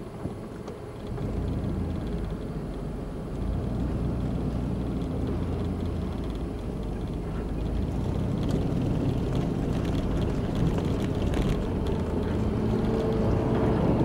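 Car driving on a dirt and gravel road, heard from inside the cabin: a steady low rumble of engine and tyres that grows louder, stepping up about a second in and again a few seconds later.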